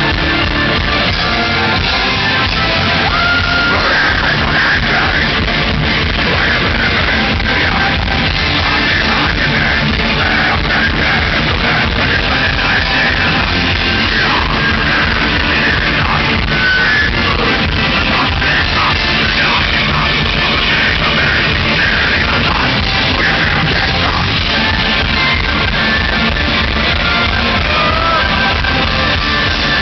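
Live folk metal band playing loud, with distorted guitars, steady pounding drums and yelled vocals, echoing in a large hall and recorded with a poor, distorted sound.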